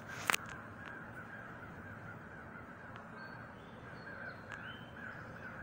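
Crows cawing repeatedly, with a few higher bird chirps, and one sharp click about a third of a second in.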